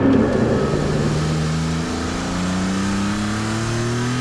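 Maserati MC20's mid-mounted 3-litre twin-turbo V6 accelerating, its revs climbing steadily.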